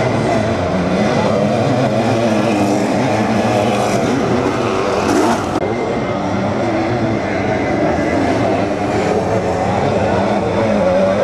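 Several sidecar motocross outfits' engines revving hard on the track, their pitch rising and falling as they accelerate and back off.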